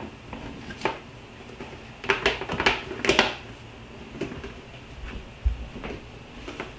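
Clear plastic storage tub lids being handled and pressed shut: a series of short plastic clicks and knocks, bunched between about two and three and a half seconds in, with a soft low thump about five and a half seconds in.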